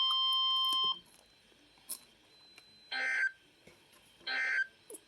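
Emergency alert audio: the steady weather-radio warning alarm tone cuts off about a second in, followed by two short buzzing SAME digital data bursts about a second and a half apart, the pattern of the end-of-message code.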